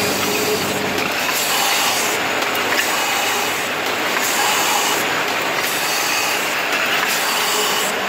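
Automatic coating and printing machine running: chain conveyor and rotating spindles making a steady mechanical noise, with a repeating change in the sound about every one and a half seconds as the machine cycles.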